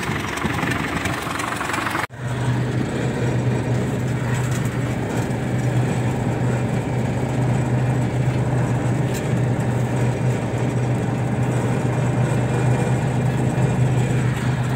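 T-150 tractor's diesel engine running steadily up close, powering the hydraulic crane hitched to it. The sound drops out for an instant about two seconds in, then comes back louder with a steady low hum.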